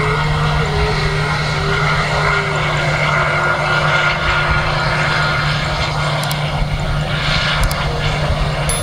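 Aircraft engines at an airport, a loud steady noise with a constant low hum.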